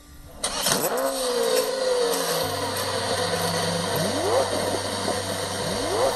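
Designed logo-sting sound effects: a rushing whoosh starts about half a second in, a steady low hum joins after about two seconds, and two rising swoops follow, one midway and one at the end.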